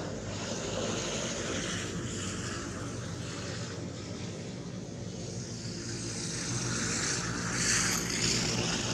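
A steady low engine drone under an even hiss, with the high hiss swelling briefly near the end.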